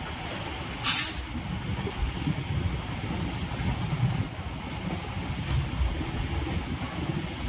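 Suburban electric multiple-unit train running, a steady low rumble heard from the open doorway of the moving carriage, with one brief, loud hiss about a second in.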